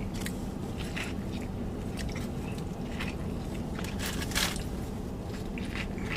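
A person chewing a mouthful of Whataburger fast food close to the microphone, with short wet crackles and crunches throughout, and one louder, longer crackle about four seconds in.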